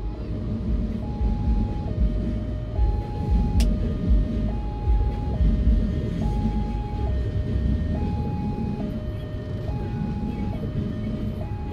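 Railway level-crossing warning alarm sounding a repeating two-tone signal, high then low, each tone held just under a second, over the low rumble of a passenger train passing over the crossing, heard from inside a car.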